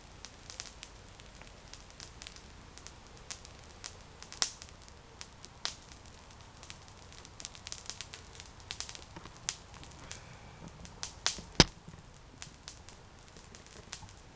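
Cheap charcoal burning in a small metal camp stove, crackling and spitting sparks with irregular sharp pops. The loudest cluster of pops comes about two-thirds of the way through.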